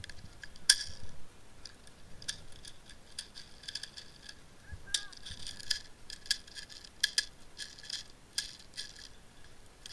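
Dry grass and brush crackling and rustling with footsteps as a player pushes through dry scrub, with many sharp clicks and snaps, the loudest near the start.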